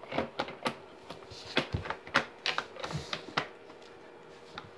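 Irregular light clicks and knocks of small objects being handled and fitted together, thickest in the first three seconds and thinning out toward the end.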